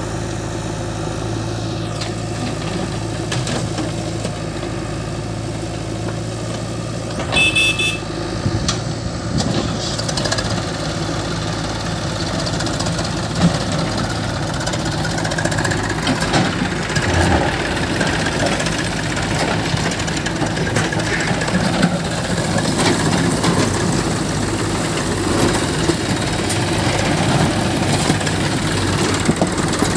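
Diesel engines of an Eicher 480 tractor idling and a JCB 3DX backhoe loader working nearby, steady at first and then rougher and a little louder as the loader lifts and tips earth into the tractor's trolley. A short clatter sounds about seven seconds in.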